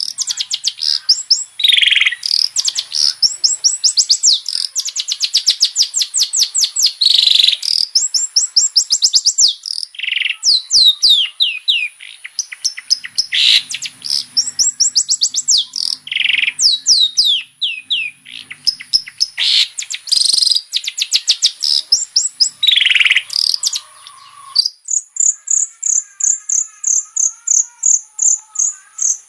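Long-tailed shrike singing a vigorous, varied song: rapid runs of high, downward-sweeping notes broken by short harsh rasping calls. About three-quarters of the way through it switches to a fast, even trill of high notes.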